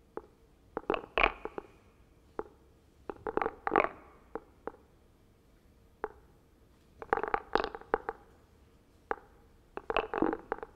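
Sparse electroacoustic concert music: four short clusters of crackling, scraping noises, each under a second, separated by pauses and single clicks, over a faint steady hum.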